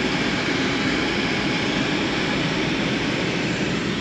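A steady, even rushing noise with no breaks or separate events.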